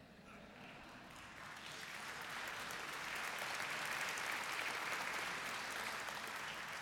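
Audience applauding in a large hall, swelling over the first few seconds and then holding steady.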